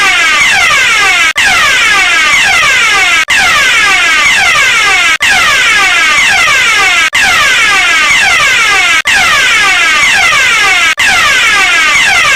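A fire alarm sounding loudly and continuously, a fast repeating sweeping tone, broken by a brief gap about every two seconds.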